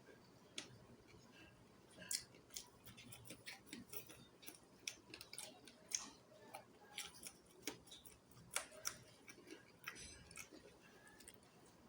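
Close-miked eating of chicken feet curry: irregular, quiet, sharp mouth clicks and small crunches as the feet are chewed and sucked.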